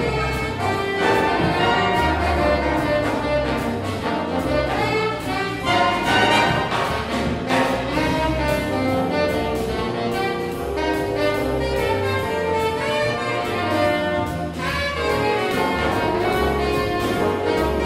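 Jazz big band with saxophones, trumpets and trombones, joined by a symphony orchestra, playing an arrangement with the brass prominent.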